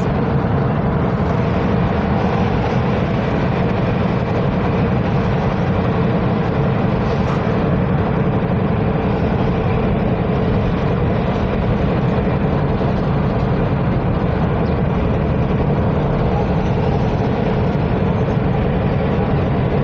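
Steady road, tyre and engine noise heard from inside a moving car, a constant low rumble with no breaks.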